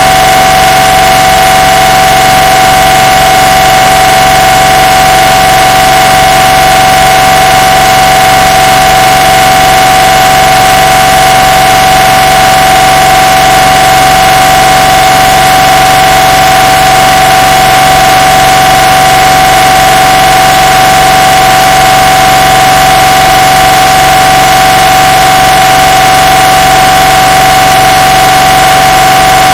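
MRI scanner's gradient coils sounding one steady, unchanging tone with overtones over a loud hiss. The recording is boosted to near full scale.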